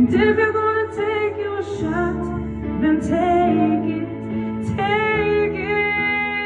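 A woman singing a slow ballad into a handheld microphone over a backing track: several short sung phrases with sliding pitch, then a long held note near the end.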